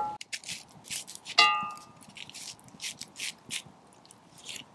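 A knife cutting through a raw onion on a wooden log: a series of short, crisp cuts. About one and a half seconds in, a brief metallic clink that rings for a moment.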